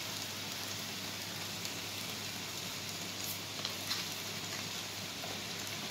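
Onions sautéing in a frying pan, sizzling with a steady, even hiss, with a few faint clicks around the middle.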